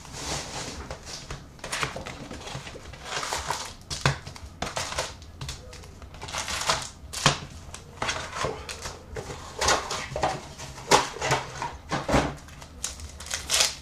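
Cardboard hobby box of Upper Deck hockey card packs being opened and emptied: an irregular run of cardboard scrapes, taps and packaging rustles as the packs are handled and set down on a glass counter.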